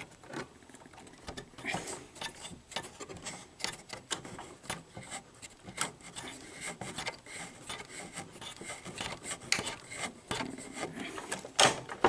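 Irregular clicking, scraping and rubbing from the loading mechanism of an opened Sony SL-HF500 Betamax VCR being pushed by hand, with a few sharper clicks. The owner suspects a stripped loading gear with a sheared-off tooth.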